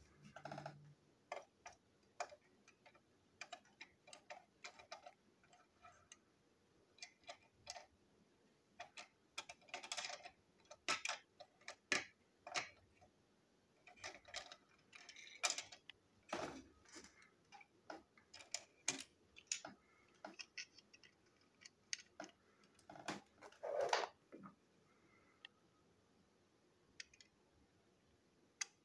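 Plastic toy train wagon parts being handled on a tabletop: irregular light clicks and taps, with a few louder knocks scattered through.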